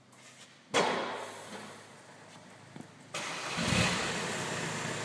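Volkswagen Golf IV 1.9 TDI four-cylinder diesel starting through a custom-welded exhaust silencer: a sudden loud burst about a second in that dies down, then an abrupt jump to a steady, louder running sound about three seconds in.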